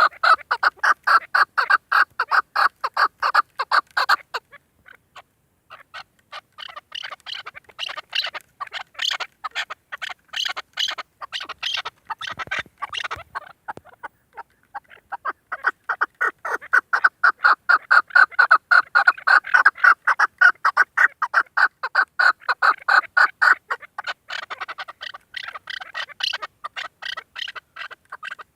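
Female chukar partridge calling: a long run of rapid clucking notes, several a second. The calling breaks off briefly about four seconds in, comes back softer and more uneven, then settles into a steady, loud series again.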